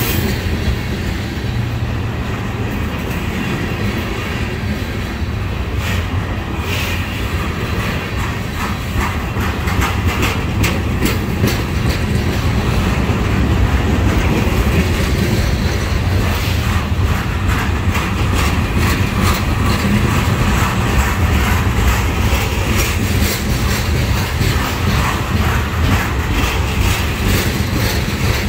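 Freight train of railcars carrying trash containers rolling past: a steady low rumble of the cars, with frequent clicks and clacks of the wheels over the track, busier in the second half.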